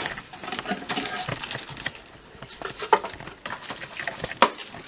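Packaging crinkling as a new PC power supply is unpacked and handled, with scattered clicks and knocks and one sharp click near the end.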